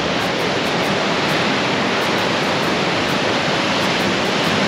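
Ocean surf breaking and churning against a rocky cliff base: a steady rush of white water.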